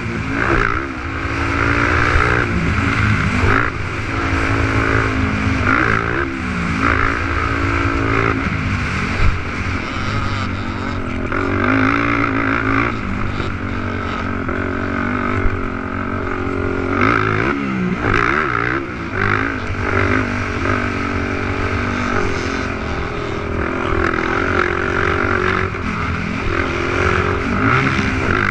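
Racing 450-class quad (ATV) engines, single-cylinder four-strokes, revving up and down continuously as they are ridden hard around a motocross track. Several engine notes overlap, rising and falling with the throttle.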